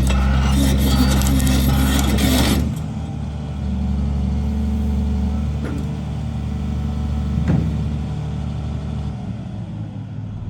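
CAT 336D excavator's diesel engine running, louder and busier for the first few seconds, then settling to a steady even run. There are a couple of short clicks in the middle, and the engine note drops slightly near the end.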